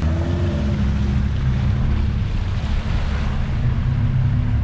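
4x4's engine running steadily at low revs as it drives through deep water, with water rushing and splashing around the vehicle.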